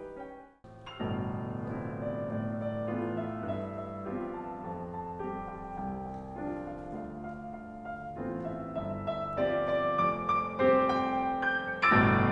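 Piano music of sustained notes and chords. It drops out briefly about half a second in, and a louder, fuller passage begins near the end.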